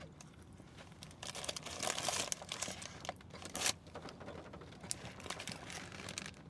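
Paper sandwich wrapper crinkling and rustling in the hand as a burger-style sandwich is held and handled, with soft chewing. The rustling is loudest from about one to two and a half seconds in, with a sharp crackle a little past the middle.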